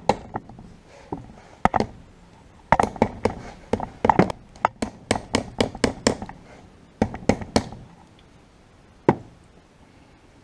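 Sharp, irregular taps and knocks in quick clusters as a hand tool works the pressed-on mud shield off the pinion end of a Land Rover Series 2a differential, with one last knock near the end.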